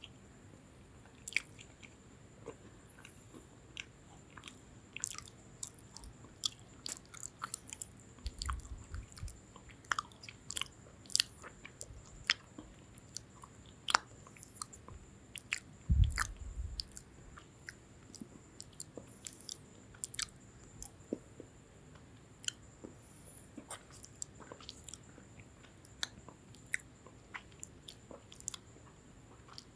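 Close-miked chewing of lemon cream sandwich biscuits: crisp, irregular crunching clicks. There are two low thumps, the louder one a little past halfway.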